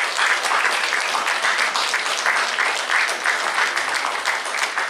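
Audience applauding: dense, continuous clapping from many hands.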